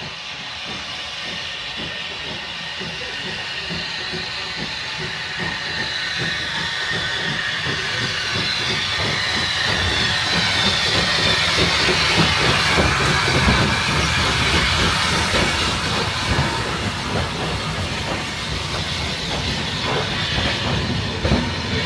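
Steam locomotive 'Guinness' 3BG on the move, with steam hissing over a continuous clatter of knocks. It grows steadily louder through the first half and stays loud, the hiss strongest about halfway through.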